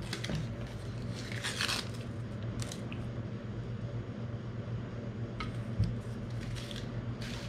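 Paper wrapping crinkling and tearing in short rustles as it is peeled off a MacBook power adapter, over a steady low hum.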